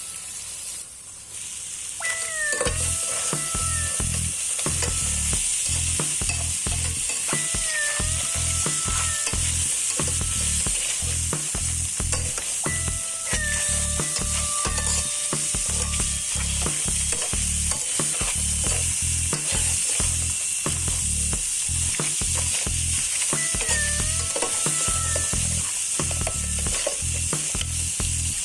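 Crabs sizzling as they fry in a pan and are stirred. About two seconds in, a low pulsing beat and a pitched, gliding melody come in over the sizzle.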